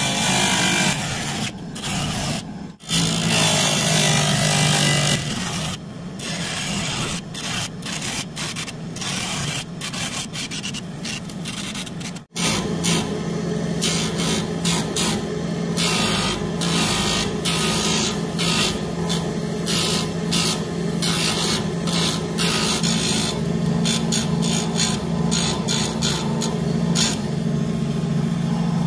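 Small electric motor spinning the thin blade of a homemade mini table saw while thin PVC sheet is cut and its edge is trimmed round against the blade: a steady hum under a rough rasping scrape that comes and goes with each pass. The sound cuts out for a moment about twelve seconds in.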